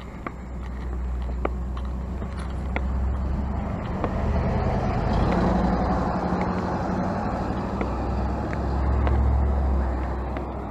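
A pickup truck drives past close by, its engine and tyre noise swelling to a peak around the middle and then fading, with another low rumble near the end.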